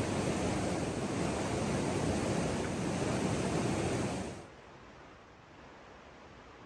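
Rushing water of a mountain stream: a loud, steady roar that cuts off about four and a half seconds in, leaving a much quieter hiss.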